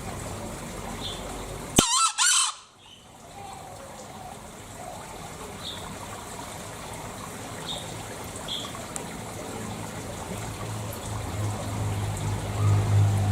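A green junglefowl crowing once, a short call about two seconds in that cuts off abruptly. Otherwise a steady background hiss with a few faint high chirps.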